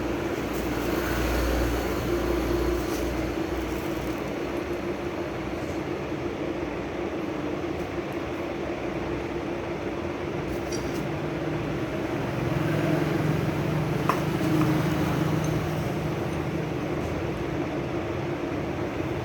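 Steady mechanical hum with a constant low tone, with a faint click or two of handling.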